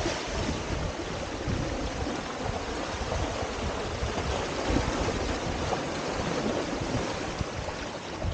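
Steady rush and splash of sea water streaming past a Windsurfer LT board sailing through chop, with wind buffeting the microphone in low gusts.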